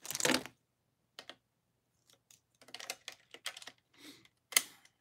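Plastic parts of a Ryusoulger Kishiryu robot toy clicking and rattling as pieces are pulled off and snapped back on. A brief clatter at the start, then a string of separate, irregular clicks, the sharpest about four and a half seconds in.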